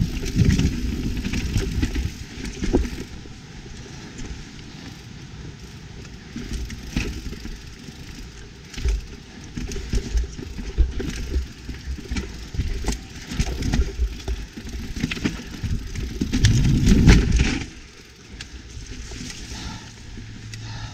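YT Capra mountain bike ridden down a rough, rooty trail: a continuous rumble of tyres over dirt, with many sharp knocks and the rattle of chain and frame over bumps. There are loud surges of rumble at the start and again about three quarters of the way through.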